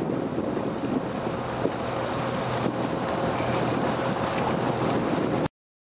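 Wind buffeting the microphone over open water, a steady rushing noise with a faint steady hum underneath; it cuts off abruptly about five and a half seconds in.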